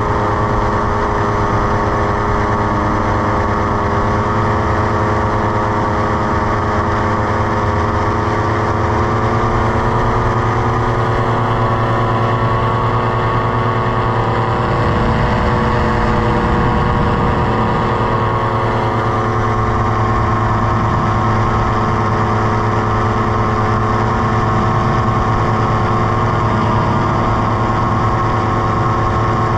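Paramotor trike's engine and propeller running steadily in flight: a loud, even drone with only slight shifts in pitch.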